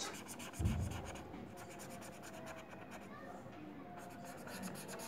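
Marker pen scratching across paper in quick strokes while colouring, with one low thump about a second in.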